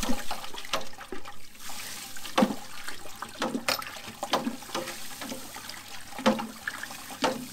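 Crushed Pilsner malt pouring from a stainless steel bowl into the strike water in a Grainfather mash tun, a steady hissing, splashing rush as the grain is mashed in. Several sharp knocks come through it.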